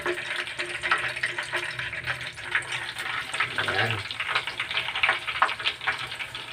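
Breaded chicken cordon bleu deep-frying in a small saucepan of hot oil, the oil bubbling with a dense crackle of sizzling pops.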